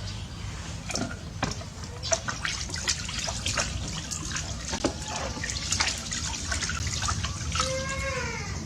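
Bathwater splashing and dripping as a small monkey moves around in a bathtub, a steady run of small splashes and drips. A short pitched call near the end.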